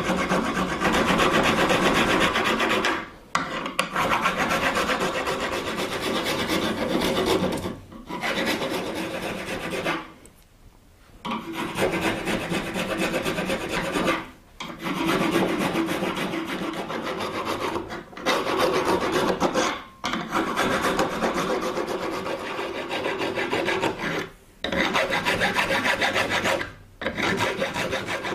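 Small round file cutting the string groove into the horn-capped tip of a yew recurve bow, in quick back-and-forth rasping strokes. The filing runs in spells broken by short pauses, the longest about ten seconds in.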